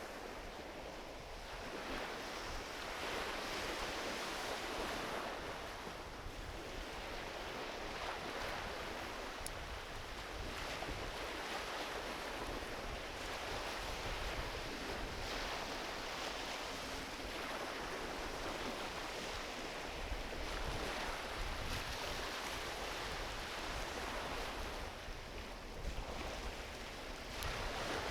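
Small ocean waves washing onto a beach, the surf swelling and easing every few seconds, with a couple of faint crackles from a driftwood campfire.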